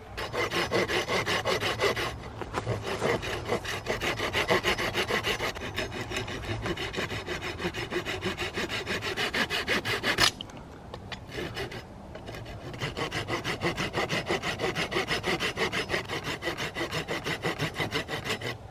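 Folding saw cutting a notch into a green wooden pole, with even back-and-forth strokes at about three a second. The sawing stops for about two seconds midway, then starts again.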